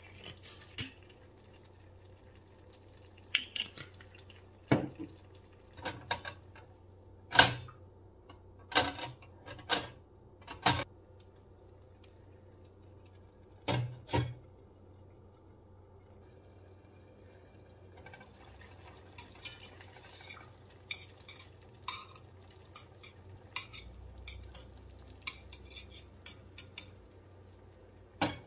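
Clinks and knocks of cookware: a stainless frying pan and its glass lid with a metal handle being handled, with a pair of knocks as the lid is set on the pan about halfway through. Then a run of faint, scattered ticks from the covered pan as it cooks, and another knock near the end as the lid is lifted.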